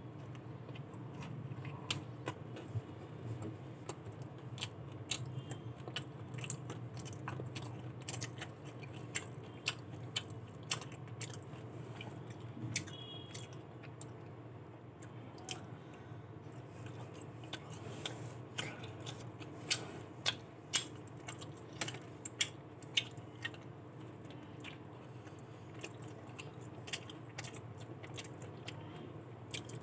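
A person chewing and biting into a crispy fried chicken burger up close, with many short crunching clicks over a steady low hum.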